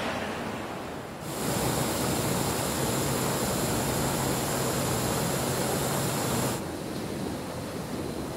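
Backpacking canister gas stove burning under a pot: a steady hiss that starts abruptly about a second in and cuts off near the end. Wind noise on the microphone before and after.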